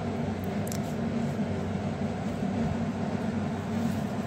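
A steady low mechanical hum with an even hiss under it, and a faint click under a second in.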